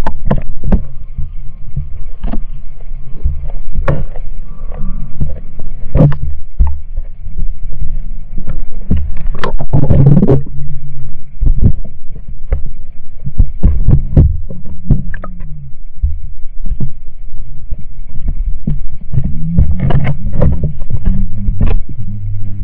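Underwater sound picked up by a submerged GoPro: a loud, muffled low rumble with scattered knocks and clicks as water moves around the camera.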